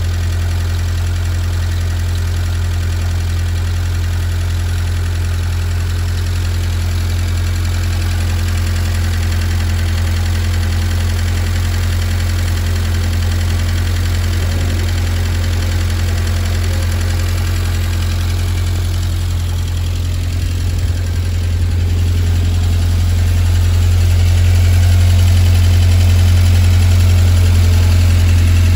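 Fordson E83W's four-cylinder side-valve engine idling steadily, with its noisy tappet adjusted. It gets a little louder near the end, as it is heard from close to the newly replaced exhaust.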